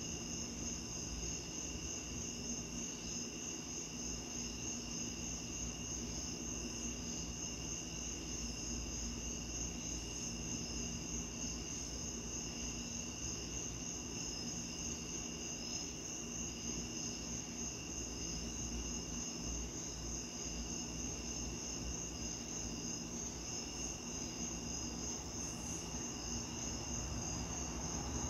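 Night insects calling steadily: a cricket chorus with a high, fast, evenly pulsing trill over lower steady calls, above a low steady background hum. A broader rumble starts to swell near the end.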